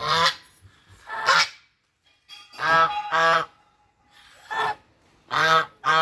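Brown Chinese geese honking: about seven loud, short honks at uneven intervals, some in quick pairs.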